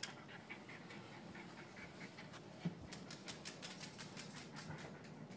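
A small dog's claws clicking on a hard smooth floor as it walks, faint, with a quick run of clicks about three seconds in. One soft thump comes near the middle.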